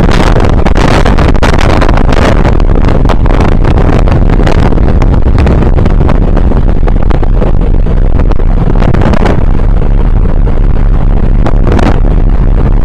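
Wind buffeting the microphone on the deck of a car ferry under way: a loud, steady, deep roar broken by rapid gusty crackles, with the ship's engine and wash mixed into it.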